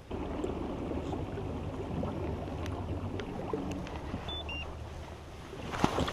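Bow-mounted electric trolling motor running with a steady low hum and rumble. A few sharp knocks come near the end.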